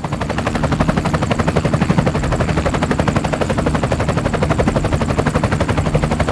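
Film projector clatter sound effect: a loud, rapid, even rattle of the film advancing over a steady low hum.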